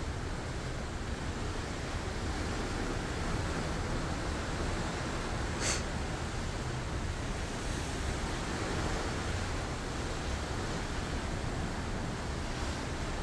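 Steady rush of sea water churning and breaking along the hull of a moving cruise ship, with low wind rumble. A single short, sharp click about halfway through.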